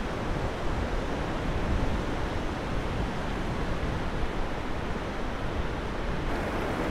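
Steady rush of sea surf on a sandy beach, mixed with wind.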